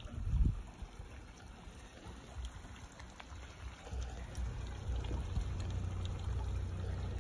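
Small garden waterfall trickling over rocks into a pond, with a steady splashing and a few faint drips. Under it, a low rumble gets stronger from about four seconds in.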